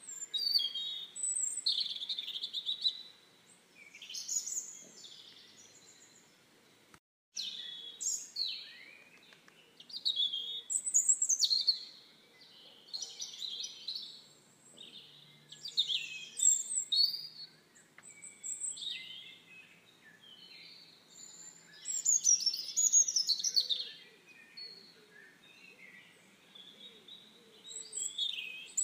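Small birds chirping and calling, many short high chirps and quick sweeps in overlapping clusters every second or two. The sound cuts out briefly about seven seconds in.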